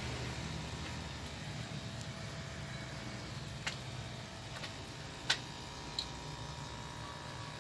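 Steady low mechanical hum, with three short sharp clicks in the second half, the middle one the loudest.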